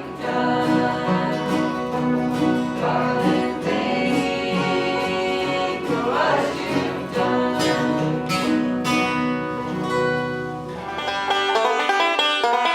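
Bluegrass music played on acoustic guitar and banjo. Near the end it changes abruptly to a thinner passage without the low end.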